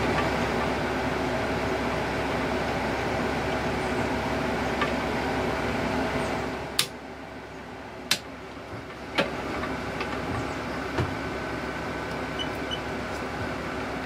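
A steady machine hum with several pitched tones drops away about seven seconds in, followed by four sharp clicks spread over the next few seconds.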